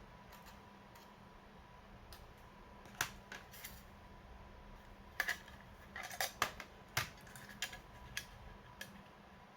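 Sharp clicks and light taps of small laptop parts being handled: one about three seconds in, a quick cluster from about five to seven seconds, then a few scattered ones, over a faint steady hum.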